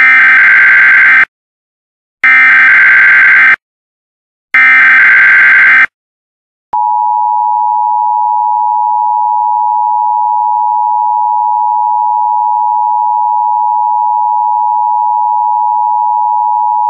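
Emergency Alert System opening: three short bursts of SAME digital header tones, each about a second and a half long and a second apart. About 7 s in, the two-tone EAS attention signal (853 and 960 Hz sounded together) starts as a loud, steady tone that announces an emergency alert.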